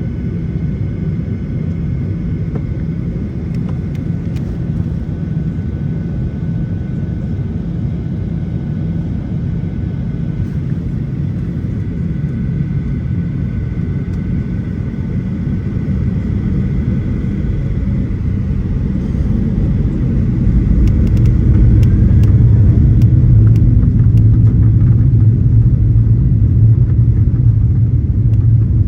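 Boeing 737-800's CFM56 jet engines heard inside the cabin at takeoff: a steady rumble with a faint whine, growing clearly louder about two-thirds of the way through as the aircraft powers up and rolls down the runway.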